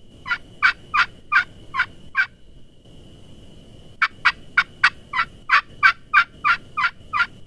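Turkey pot call (friction call) worked with a wooden striker, giving hen yelps: a run of six, a pause of under two seconds, then a longer run of about eleven.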